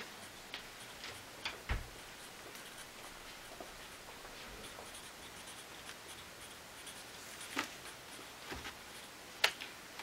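Marker pen writing on a sheet of paper: faint scratchy strokes, with a few sharper ticks as the pen meets or leaves the paper.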